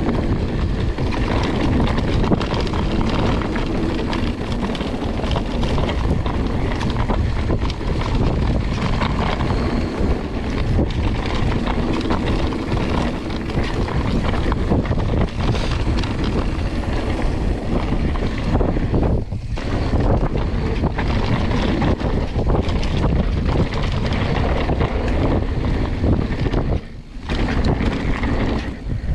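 Wind buffeting the microphone over the rumble and small knocks of a mountain bike rolling fast down a dirt trail. It eases off briefly about two seconds before the end.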